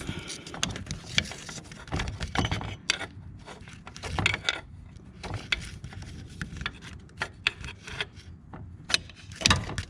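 A serpentine accessory belt being worked off its pulleys by hand while the tensioner is held back with a ratchet: irregular rubbing and scraping with scattered clicks and knocks of tool and metal parts.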